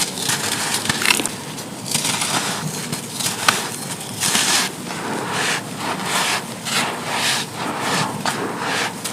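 Clumps of dried sand crumbling and crunching in a steady run of gritty crunches, a little more than one a second.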